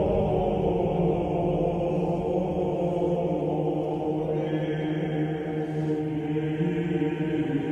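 Background music: a sustained, chant-like drone of held tones.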